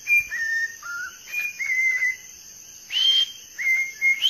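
Whiteface cockatiel whistling a melody in clear, pure notes. The notes step down in pitch and back up, there is a short pause, and a new phrase starts on a high note near the end.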